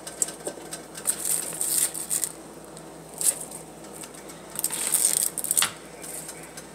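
Cut vegetables, cabbage leaves and zucchini pieces, rustling and knocking against a metal colander as a hand moves them about, in several short bursts.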